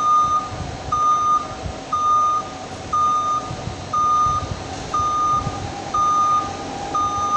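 Warehouse forklift's warning beeper sounding at an even pace, about one half-second beep per second, over the steady hum and rumble of the truck as it travels.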